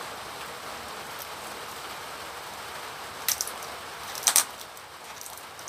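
Steady hiss of rain, with two short crinkling crackles from a plastic fish bag being handled, about three and about four seconds in; the second is the louder.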